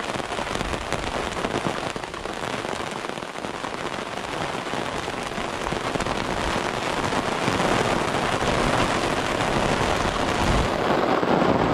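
Steady rain falling during a thunderstorm, a dense crackling patter with no thunder heard, growing somewhat louder after about seven seconds.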